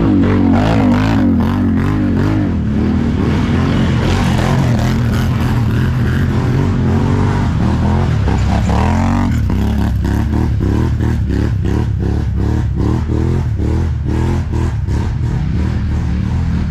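ATV engine running under load off-road and revving, its pitch rising and falling, with a climb in revs about nine seconds in. After that it runs choppier, pulsing a few times a second.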